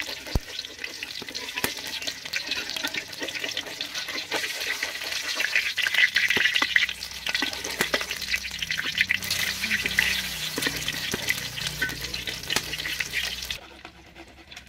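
An egg frying in hot oil in a steel wok, sizzling and crackling, with a metal spatula scraping and clicking against the wok as it pushes the egg around. The sizzle dies down sharply near the end.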